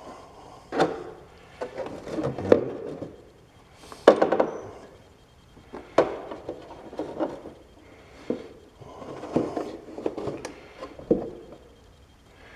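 Hands working a riding mower's oil drain tube, caps and a cut-open plastic jug used as a drain pan: scattered knocks, clicks and rubbing, with sharp knocks about a second, four seconds and six seconds in.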